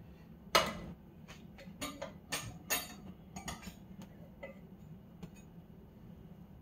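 A utensil clicking and tapping against a waffle maker's plates as a cooked waffle is worked loose. There are a dozen or so sharp clicks: the loudest about half a second in, most between two and four seconds, thinning out after about five seconds.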